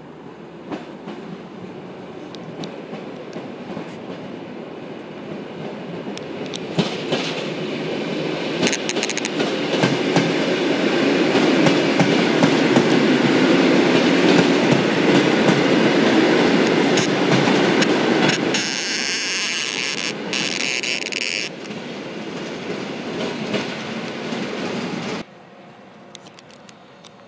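Electric multiple-unit passenger train passing: rumble and clickety-clack of its wheels building to a peak about midway. A high squeal or hiss from the wheels comes for a few seconds near the end, then the sound cuts off suddenly.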